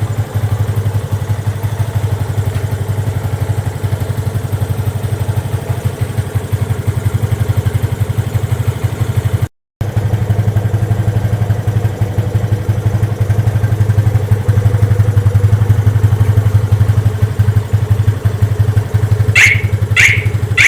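Yamaha FZ25's single-cylinder engine idling steadily. Near the end come three short, high beeps from the motorcycle's alarm.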